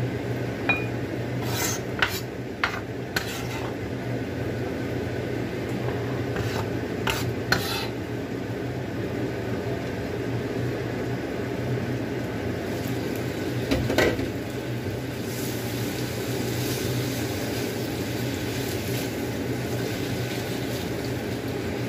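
A kitchen knife knocks sharply on a wooden chopping board while vegetables are diced, several strokes in the first eight seconds and one more about 14 seconds in. Under it runs a steady kitchen hiss and low hum.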